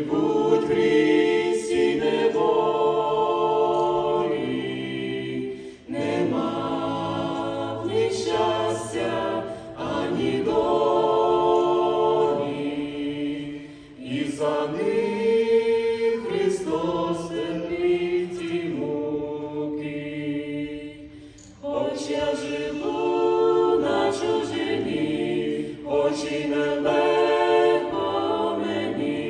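A mixed vocal quartet of two men and two women singing a cappella in harmony. The long sung phrases are broken by short pauses about 6, 14 and 21 seconds in.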